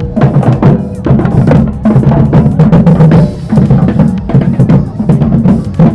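A group of drummers playing a loud, dense rhythm on deep drums.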